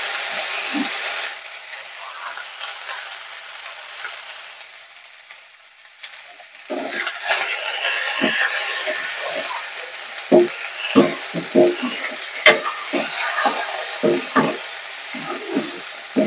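Potatoes and drumstick leaves sizzling as they fry in a steel kadhai, with a steel spoon scraping and knocking against the pan as it is stirred. The sizzle drops low for a few seconds in the middle, and from about seven seconds in the stirring strokes come thick and fast.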